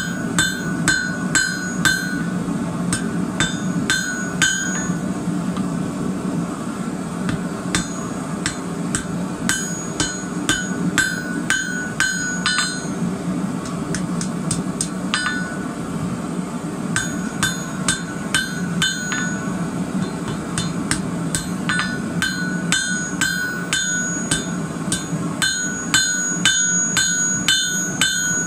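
Hand hammer striking red-hot twisted rebar on an anvil in runs of quick blows, about three a second, each with a short metallic ring, with pauses of a second or more between runs. A steady low hum runs underneath.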